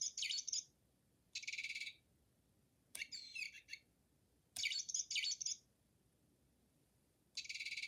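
A bird chirping in short high trilling bursts, about five of them, each around half a second to a second long, with silent pauses between.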